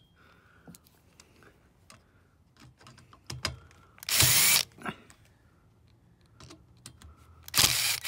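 Cordless Ryobi drill-driver spinning in a short burst about four seconds in, then running again near the end as it backs a screw out of the trailer-receptacle plate. Light clicks and handling noises come in between.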